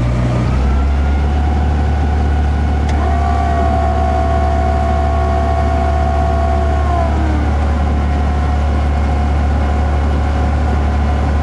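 Amphicar's rear-mounted four-cylinder engine running steadily as the car motors across the water, a loud, even low drone. A higher steady whine joins about three seconds in and slides down and fades about seven seconds in.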